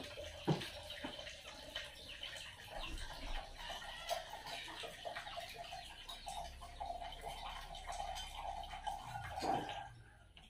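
Faint water running and splashing into a container, with small clicks of a spoon on a plate.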